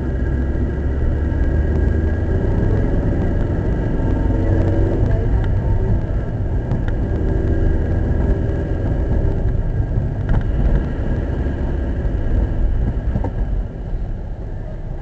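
Car engine and road noise heard from inside the cabin as the car drives along, a steady low rumble throughout.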